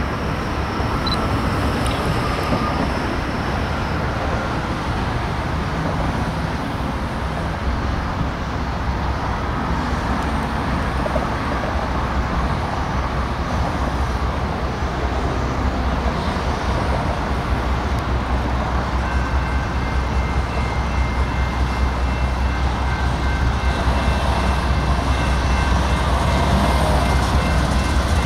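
BNSF diesel locomotive approaching slowly, its engine a steady low rumble that grows a little louder toward the end. Faint steady high tones come in about two-thirds of the way through.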